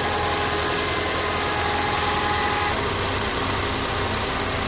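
Ford Mustang engine idling steadily with the hood open, heard close over the engine cover while it still runs on its old spark plugs. A sound meter held there reads about 82 dB C-weighted.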